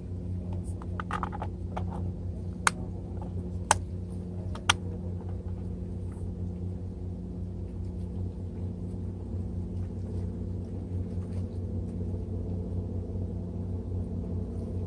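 Steady low engine hum, even and unchanging, with three sharp clicks about a second apart a few seconds in.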